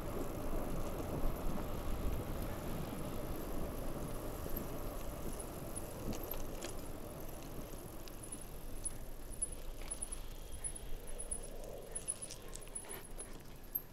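Bicycle riding on pavement, heard from a handlebar-mounted camera: a steady rumble of tyres on the road with light rattles and clicks from the bike. It grows a little quieter near the end.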